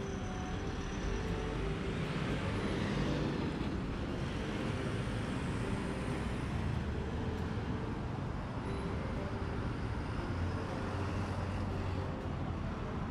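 Street traffic: a steady wash of cars and engines going by on a town street, with one vehicle swelling past a few seconds in.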